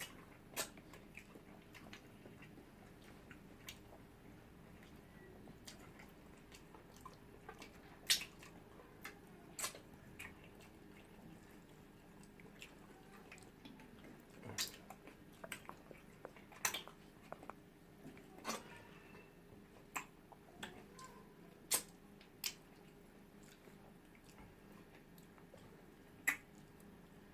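Close-up mukbang eating sounds: wet chewing and mouth smacks as people eat swallow (pounded yam and eba) with okro soup, heard as soft, irregular sharp clicks spaced a second or two apart.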